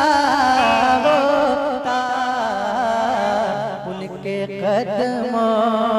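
A man singing a naat, an Urdu devotional poem in praise of the Prophet, in a slow, heavily ornamented style: long held syllables that waver and glide between notes. A steady low drone sits beneath the voice, and there is a short break between phrases near the end.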